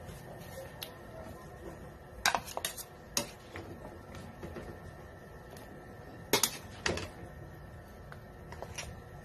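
Metal ladle clinking against a metal cooking pot and a serving bowl as stew is ladled out: a few sharp clinks about two to three seconds in, and two more about six to seven seconds in.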